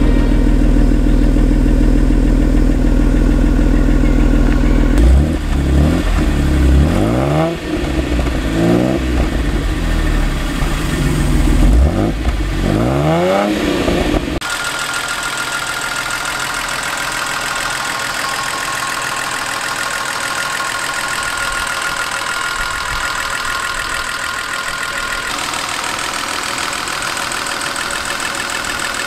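Mercedes 280 SL's M110 twin-cam straight-six running at idle, then revved several times in short blips that rise and fall in pitch. About halfway through the sound changes abruptly to a quieter, steady idle with a thin high tone.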